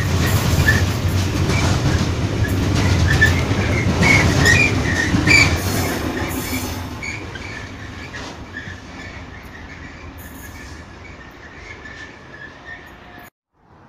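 Freight train's coal hopper wagons rolling past, a heavy rumble with brief wheel squeals and clicks over the rail joints, fading away after about six seconds as the end of the train passes. The sound cuts off suddenly near the end.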